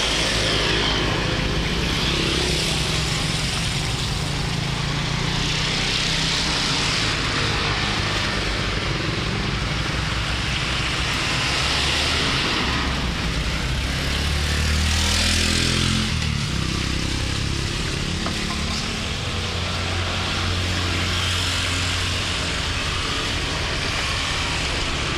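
Hot oil sizzling and bubbling steadily in a large wok as battered fruit fritters deep-fry, over a low rumble of motor traffic; a vehicle passes about halfway through.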